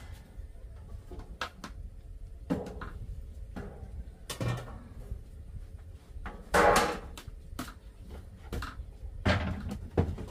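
Irregular knocks and clatters, about a dozen scattered through, the loudest a longer clatter about six and a half seconds in.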